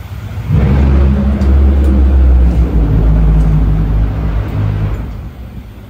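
A loud engine running with a steady low drone, starting abruptly about half a second in and dying away near the end.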